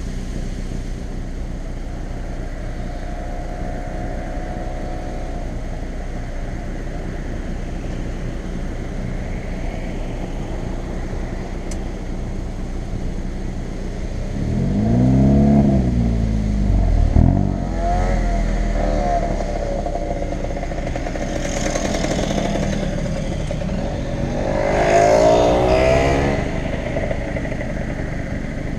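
Hyundai i30 N's turbocharged four-cylinder engine and exhaust under way, running with a steady drone. It revs up and falls back twice, about halfway through and again near the end, with a sharp exhaust pop as the revs drop the first time.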